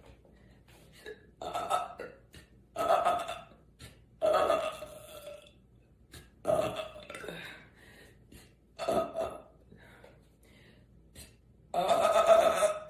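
A woman belching loudly six times in a row, a few seconds apart. The last belch, near the end, is the longest and loudest.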